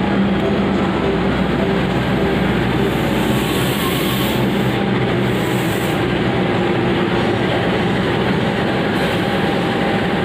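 KAI CC 206 diesel-electric locomotive running with a loud, steady engine drone as it rolls slowly past at close range, pulling into the platform.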